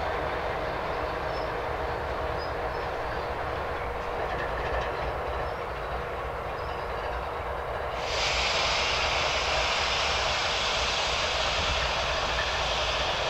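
Freight train's tail-end BNSF diesel locomotive, running as a distributed power unit, rolling past and away with a steady rumble of engine and wheels on the rails. About two-thirds of the way through, the sound switches abruptly to a steady hiss.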